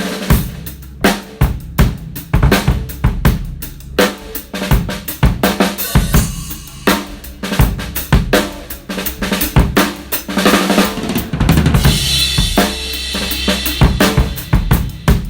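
Premier Artist Maple drum kit being played: a busy groove of bass drum, snare and hi-hat hits, with a stretch of ringing cymbal wash a little past the middle.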